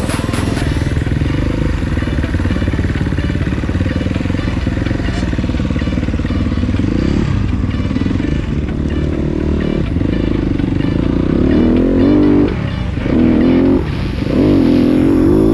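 Enduro motorcycle engine running under load while riding off-road. Near the end the revs rise and drop in short bursts, with the engine note climbing in pitch on each blip of the throttle.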